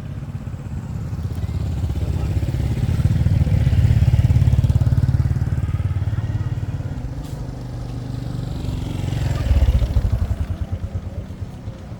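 Motorbike engine running close by, swelling to its loudest about four seconds in and again near ten seconds.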